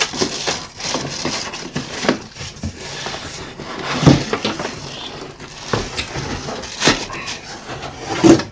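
Plastic wrapping crinkling and cardboard scraping as a bagged coffee maker is pulled out of its shipping box, with several knocks; a thump near the end as the machine is set down on the wooden table.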